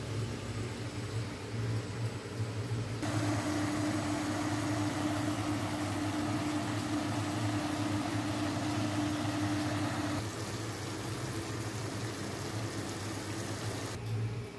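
Steady low machine hum. From about three seconds in to about ten seconds in, a louder whirring hiss with a held tone joins it.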